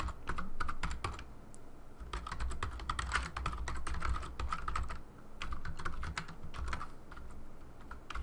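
Typing on a computer keyboard: quick runs of key clicks broken by a few short pauses.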